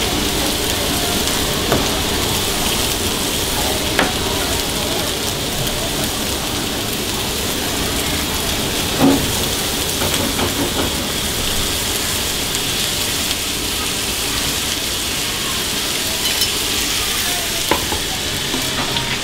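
Food sizzling steadily on a hot iron sizzle plate under a pile of spaghetti, with a few light knocks, the loudest about 9 seconds in.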